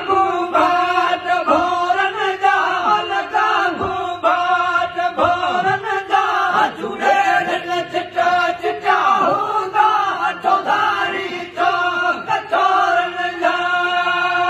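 A group of men chanting together unaccompanied, in long held notes that slide in pitch, in devotional praise of a saint.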